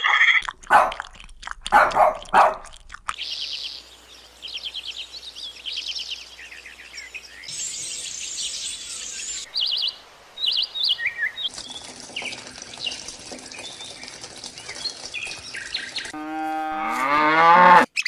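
A string of separate animal-sound clips edited together: a few loud calls in the first three seconds, then a stretch of bird chirps and twitters over hiss, and near the end a pitched call that rises steeply.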